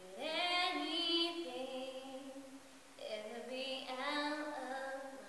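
A young woman singing a cappella, unaccompanied: two long held phrases, the second starting about three seconds in.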